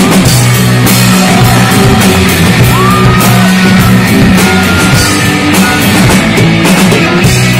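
A live rock band playing: electric guitars over bass guitar and a drum kit with steady cymbal and drum hits.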